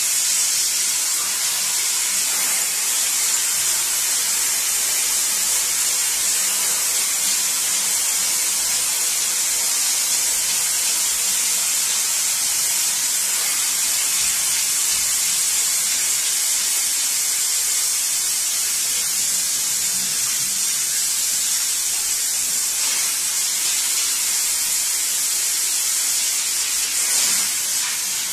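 Steady hiss of a pressurised water jet from a hand-held hose spray nozzle, playing across a gum oil print to wash the excess oil paint off its first layer.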